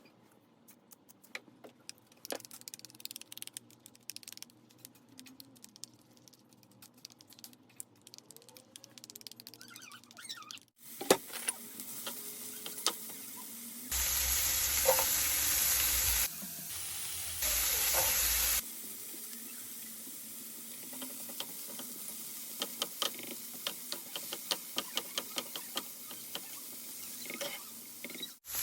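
Kitchen cooking sounds in several cuts: first faint utensil clicks, then a tap running into a sink in two bursts, then food crackling and sizzling in a hot pan.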